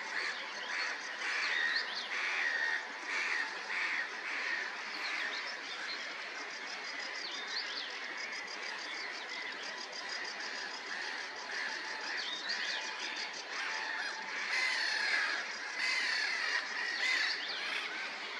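Several small birds singing and calling together, with many short chirps and whistled notes overlapping, a fast high trill in the middle, and louder calls near the end.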